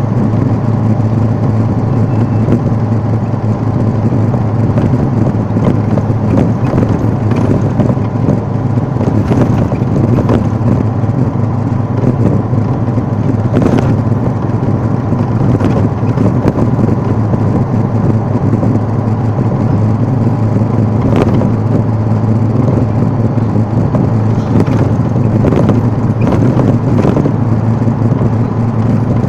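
Steady engine and road noise heard from inside a moving vehicle: a continuous low hum with tyre rumble, broken by a few brief knocks or rattles.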